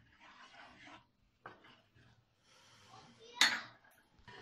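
Wooden spoon stirring and scraping through sauce in a pan, soft and intermittent, then a single sharp clink of kitchenware about three and a half seconds in.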